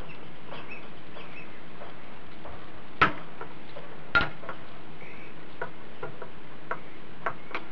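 A metal spoon scraping and clicking against a small stainless-steel dish while stirring melting butter, with scattered sharp clicks, the two loudest about three and four seconds in, over a steady background hiss.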